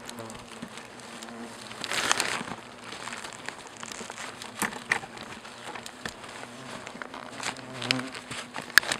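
Asian hornets (Vespa velutina) buzzing in flight around their disturbed nest, a steady low drone. Rustling of a plastic bag and brush as the nest is bagged is loudest about two seconds in, and a few sharp ticks come later.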